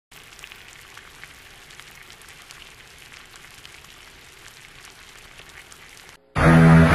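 Something sizzling and crackling in a small pot on a gas stove: a steady hiss dotted with small crackles. Near the end it cuts off, and a sudden, much louder sound with a steady low pitch takes over.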